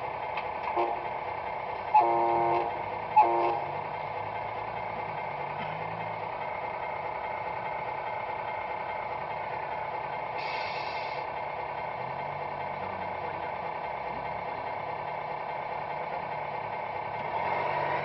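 A radio-controlled model semi-truck's electronic sound unit plays a steady diesel engine idle, with three horn blasts in the first four seconds, the middle one the longest and loudest. A short hiss comes about ten seconds in.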